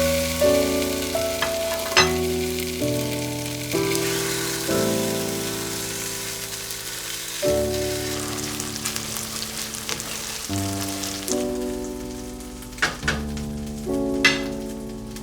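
Food sizzling as it fries in hot oil, the hiss strongest in the first half, with a few sharp clicks, under soft piano music.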